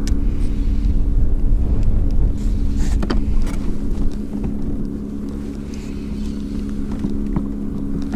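Wind rumbling on the microphone over a steady low hum. A few light knocks come about three seconds in.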